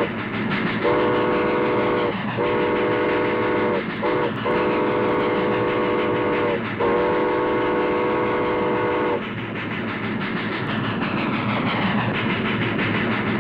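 Steam locomotive whistle blowing several long blasts, a chord of several tones with short toots between, over the steady rumble and clatter of the moving train. After about nine seconds the whistle stops and the train runs on.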